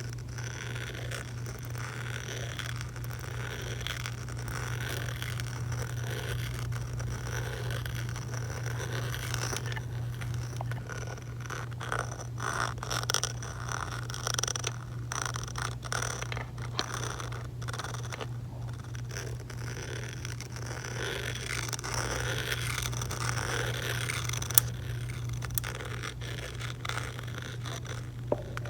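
Layered close-microphone ASMR sounds: a dense, irregular stream of clicks, crackles and scrapes over a steady low hum, with one sharper click near the end.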